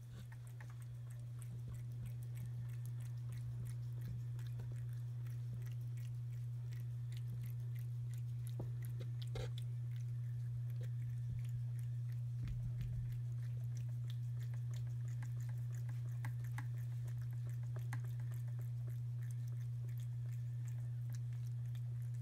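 A cat chewing and licking wet canned food from an open tin, with faint scattered wet clicks and a couple of soft knocks about ten and thirteen seconds in. A steady low hum sits under it.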